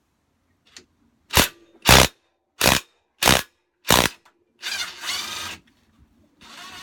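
Power driver with a socket, fired in five short bursts about half a second apart on the mower's blade nut, then run for about a second as the nut comes loose.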